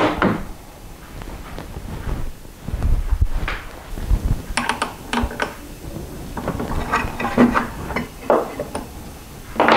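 A circular saw being handled on a plywood jig: a run of scattered knocks and clacks, with a few dull thuds a few seconds in and sharper clicks later.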